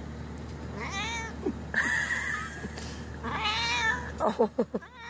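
Calico cat meowing twice while being petted, each meow rising and then falling in pitch, about a second in and again a little past three seconds.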